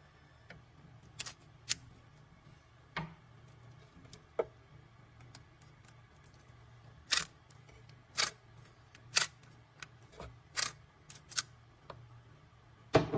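About a dozen sharp clicks and taps at irregular intervals, the louder ones in the second half, over a faint steady low hum: hands working the key cutting machine's clamp and the key.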